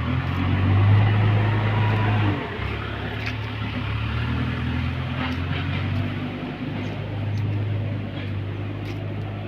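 Heavy diesel engine running, swelling in level about a second in, then dropping back with a dip in pitch just past two seconds and running on steadily, with a few light knocks.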